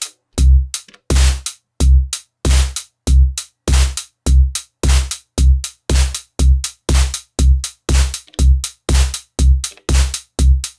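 Elektron Digitone FM synthesizer playing a dry electronic drum pattern: a deep kick about every two-thirds of a second, with short, bright hat- and snare-like hits between the kicks.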